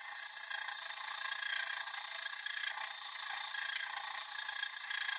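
Hand file rasping along the rusty steel lever of a hand press, a steady even scraping.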